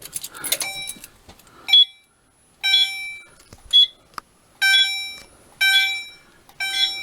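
A click and rattle as a fire alarm key station is keyed, then a Gentex Commander 2 fire alarm sounds its chime on continuous, a tone about once a second that fades after each strike, with shorter high beeps about every two seconds between.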